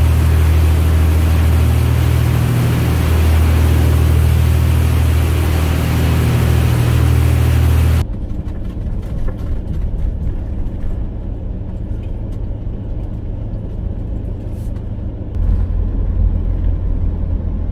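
Car ferry's engines droning steadily under wind and water noise. About eight seconds in it cuts suddenly to a quieter, lower vehicle rumble that grows a little louder near the end.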